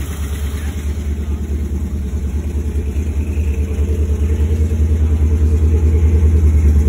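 Chevrolet 396 big-block V8 of a 1966 Chevy C10 running with a steady, rapidly pulsing rumble, just started after sitting about four years. It grows gradually louder toward the end.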